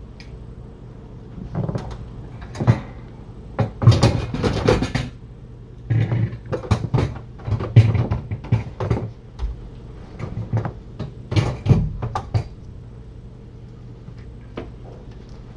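Kittens scrabbling and scratching at a cardboard scratcher: irregular scrapes, clicks and knocks for about ten seconds, over a steady low hum.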